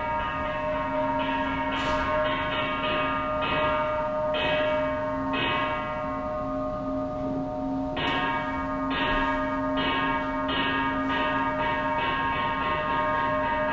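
Bell-like chimes struck one after another at an uneven, fairly quick pace, their tones ringing on and overlapping. New strikes stop for about two seconds around the middle.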